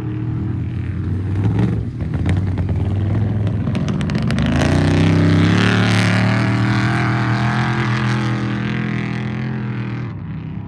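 Off-road race truck's engine running hard, rising in pitch about four and a half seconds in and getting louder, then slowly fading toward the end as it passes. A run of sharp crackles comes about two to four seconds in.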